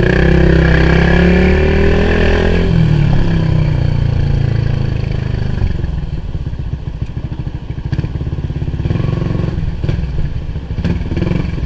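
Yamaha Tricity scooter engine pulling away, its pitch rising over the first two seconds or so, then running steadily while riding.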